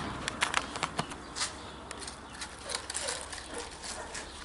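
Rustling and light clicking of plastic sheeting and plant leaves being brushed and handled, densest in the first second and thinning out after.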